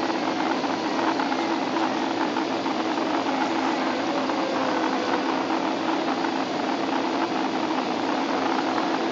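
Steady cabin noise of an airplane in flight on its landing approach: a constant engine drone under an even rush of air.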